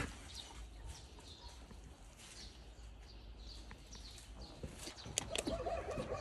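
Small birds chirping faintly and intermittently outdoors, with a brief louder call-like sound about five seconds in.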